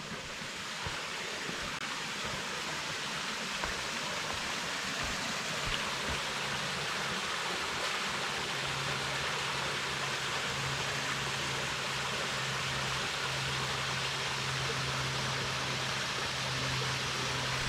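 Creek water rushing steadily over small falls and cascades, a constant even rush that swells a little over the first few seconds.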